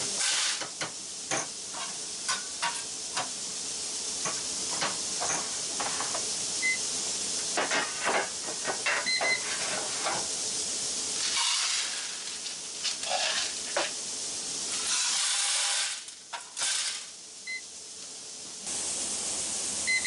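DICKEY-john GAC2500 grain analyzer being loaded and run on a shelled-corn sample: repeated clicks and rattles, several short electronic beeps, over a steady hiss.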